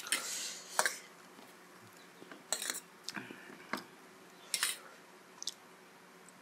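Metal fork clinking and scraping against a steel plate while twirling chowmein noodles: about seven short, sharp clinks spread over a few seconds.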